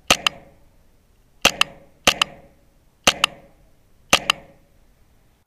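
Airsoft BB striking a replica gun: a sharp double clack, heard five times. This is the distinctive sound of a hit on a weapon.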